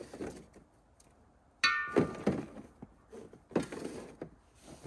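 Pop-up hub-style ice shack being collapsed: a sharp metallic clank with a brief ring about a second and a half in, then thumps and rustling as the frame and fabric fold down.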